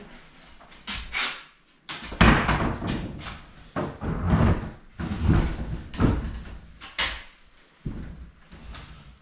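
Clutter being handled and moved: a string of irregular bangs, knocks and clattering, several loud hits about a second apart, like doors and cabinet parts knocking about.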